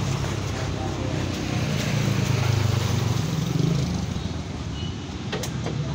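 A motor vehicle's engine running as it passes on the road, its low hum fading after about four seconds over a steady traffic hiss. A single sharp tap near the end.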